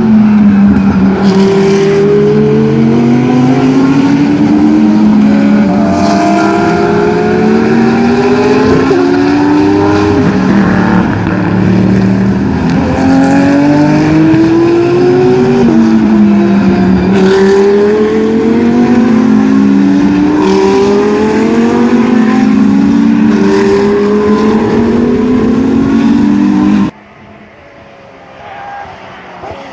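Several GT3 race car engines at full throttle, overlapping, each pitch climbing and then dropping back at every upshift as the cars accelerate through the gears. The sound falls away abruptly near the end.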